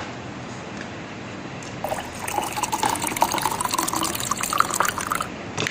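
Liquid being poured into a glass or cup, starting about two seconds in, with a pitch that rises slowly as the vessel fills, then stopping.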